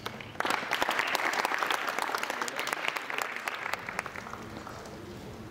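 Audience applauding, breaking out about half a second in and dying away around four seconds in.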